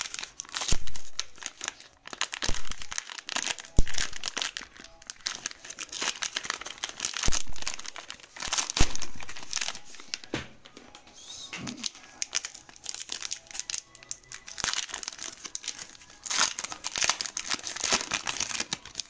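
Foil wrapper of a Panini Optic basketball card pack crinkling and crackling as it is handled and torn open by hand, with sharp rips among the crinkles.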